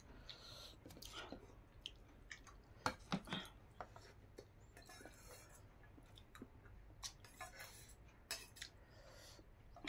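Faint eating sounds: chewing, and fingers working rice on a plate, with a scattering of small clicks and knocks from dishes, a few of them around 3 seconds in and again near the end.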